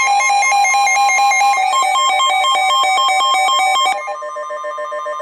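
Electronic alert tones: a fast-pulsing, ringing electronic signal on two steady pitches. About four seconds in it drops to a quieter, different tone, leading into the next weather warning.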